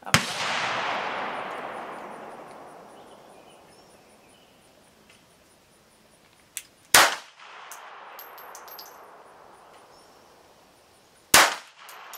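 Three semi-automatic pistol shots fired slowly, several seconds apart: one right at the start, one about seven seconds in and one near the end. Each crack is followed by a long echo that dies away.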